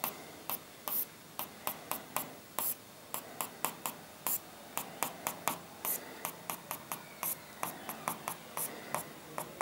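A stylus tapping and stroking on an interactive display screen as short tick marks are drawn, a quick dry click about three times a second.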